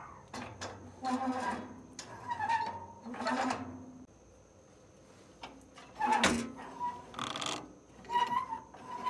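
A run of short squeaks and knocks from metal mower parts being worked by hand as the drive belt is fitted onto the clutch pulleys, with a pause in the middle.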